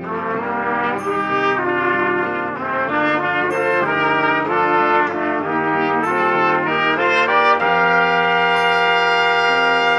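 Three trumpets playing a melody in harmony over a backing track, moving in short notes and then holding one long chord for the last couple of seconds. A cymbal-like tick from the backing track falls about every two and a half seconds.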